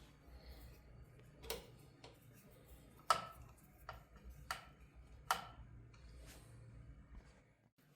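Irregular sharp clicks and taps of hard parts being handled, about half a dozen, over a faint low hum that stops near the end.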